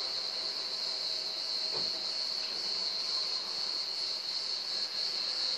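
Steady high-pitched chirring of insects, like crickets, running unbroken.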